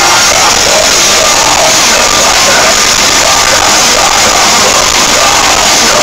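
Metal band playing live, heard from the audience: a loud, dense wall of guitars and drums with vocals over it, unbroken throughout.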